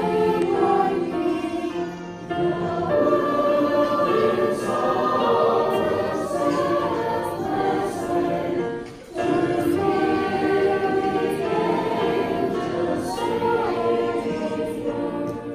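Children's choir singing, with two short pauses for breath, about two seconds in and about nine seconds in.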